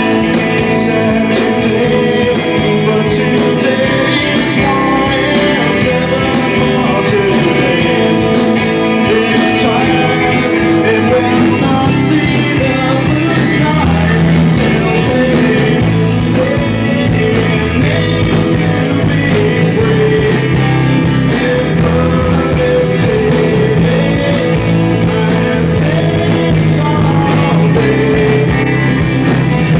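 A live rock band playing loud and steady, with electric guitars and bass guitar, and a man singing lead.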